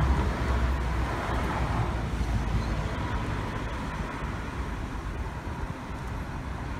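Road traffic on the adjacent street: cars driving past with a steady tyre-and-engine rumble, loudest at the start and slowly easing off.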